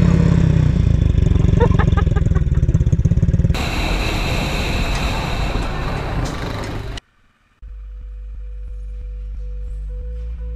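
Quad bike (ATV) engine running hard as its rear wheels spin in dry grass, with an even pulsing rumble. About three and a half seconds in it gives way to a noisier hiss of wind and engine, which cuts off about seven seconds in. After a moment of silence, background music with held tones and stepping bass notes starts.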